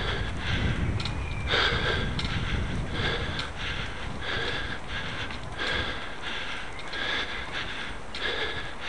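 A cyclist's hard, rapid breathing while climbing a steep cobbled hill: a breath in or out about twice a second. Under it runs a low rumble, strongest in the first two seconds.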